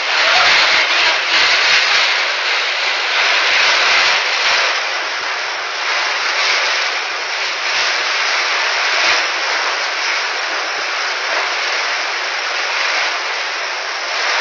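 Heavy tropical downpour: dense rain pouring down in a loud, steady hiss that swells a little now and then.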